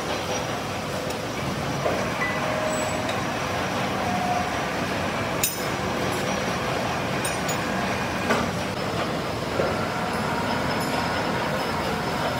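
Steady machine-shop running noise with a few short metallic clicks and clinks.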